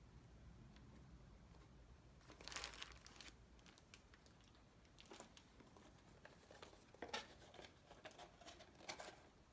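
Packaging being handled during an unboxing: faint crinkling and rustling in short bursts, the longest about two and a half seconds in, with a few sharper crackles near the end.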